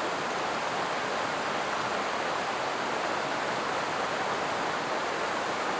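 Small mountain creek water rushing steadily over rocks, an even unbroken hiss close to the microphone.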